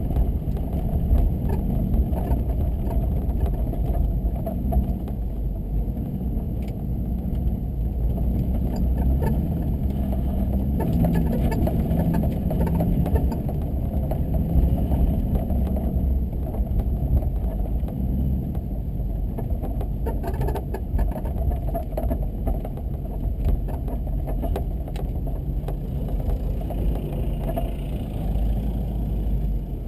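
Car driving on snow-covered streets: a steady low rumble of engine and road noise, the engine's pitch drifting up and down a little.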